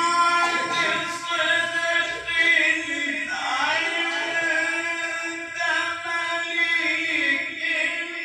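A man's solo melodic Quran recitation (tilawat), the voice holding long drawn-out notes and ornamenting them with glides in pitch.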